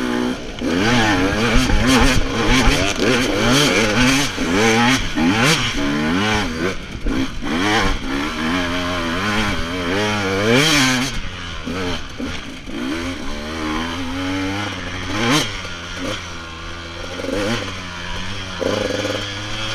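KTM 200 two-stroke enduro motorcycle engine revving up and down over and over as it is ridden over rough ground, with rattles and knocks from the bike. Near the end the revs settle lower and steadier.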